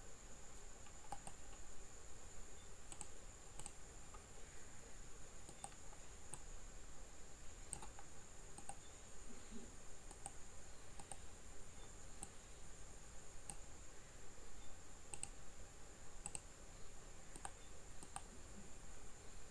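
Irregular clicks of a computer mouse and keyboard, roughly one a second, as objects are selected and modes toggled in Blender. A steady faint high-pitched whine and low hum run underneath.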